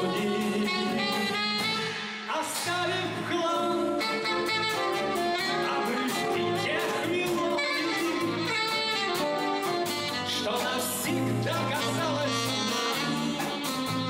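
A small jazz band playing a slow ballad live, with saxophone, guitars and drums under a singer's voice.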